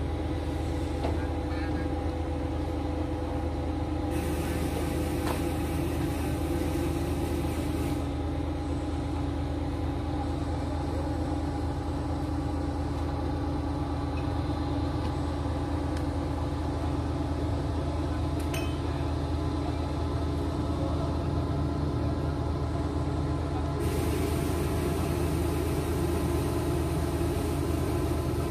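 Steady drone of the heavy diesel engines of a TR-500M mobile crane and a trailer truck running at a constant pitch. Two stretches of high hissing, each about four seconds long, come in: one about four seconds in and one near the end.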